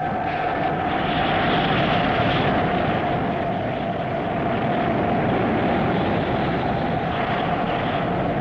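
Science-fiction spacecraft engine sound effect: a steady rushing rumble with a constant hum running through it, swelling slightly about a second in.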